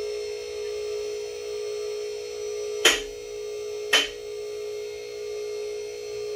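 MaxJax M6K two-post lift's 110-volt electric-hydraulic power unit running with a steady hum as it raises a pickup. About three seconds in come two sharp metallic clacks a second apart, typical of the lift's safety locks dropping into their notches as the carriages climb.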